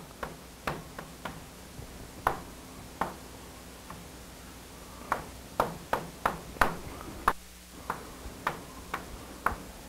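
Chalk tapping on a blackboard while writing and drawing: a series of sharp, irregular clicks, coming in quicker succession in the second half.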